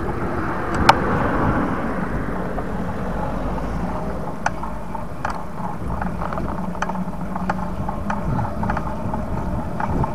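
Steady tyre and wind rumble of a bicycle being ridden, picked up by a camera on the bike, with scattered light clicks and rattles and a sharper click about a second in.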